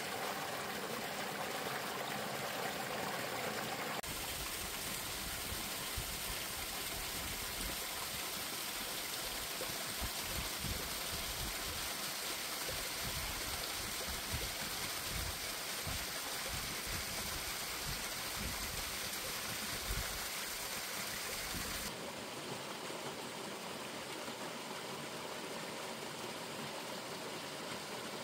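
Mountain stream running and splashing over rocks under melting ice and icicles, a steady rush of water. The sound shifts abruptly about four seconds in and again near the end, with a low rumble coming and going in the middle stretch.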